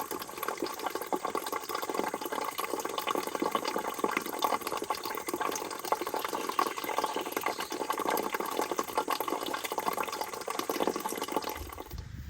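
Water running and splashing steadily, then cutting off suddenly near the end, where a low rumble begins.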